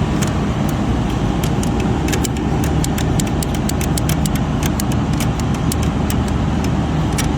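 A steady low mechanical hum, like an engine or motor running, with many sharp irregular clicks over it.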